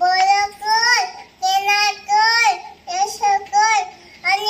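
A small child's high voice singing a prayer in about six short phrases with brief pauses between them.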